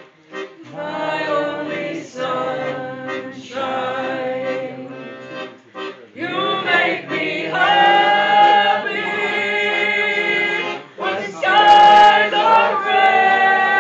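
A woman singing a slow song in full voice to her own piano accordion. The phrases come in short bursts with brief breaks at first, then turn into long held notes over sustained accordion chords, sung loudest about twelve seconds in.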